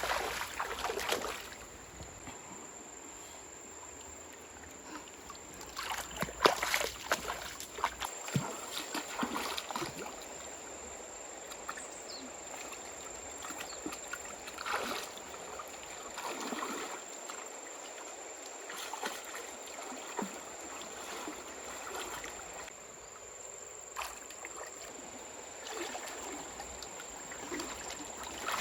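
Shallow water sloshing and splashing in irregular bursts, the loudest about six seconds in, over a faint steady high-pitched tone.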